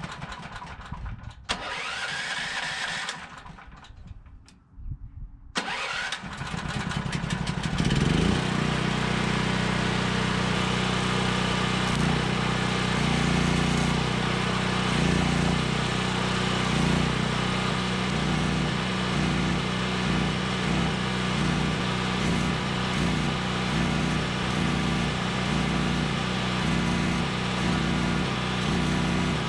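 Harbor Freight portable gas generator being started: uneven sounds for the first few seconds, then the engine catches about six seconds in and settles into a steady run by about eight seconds. Arc welding on the truck's steel goes on under the generator noise.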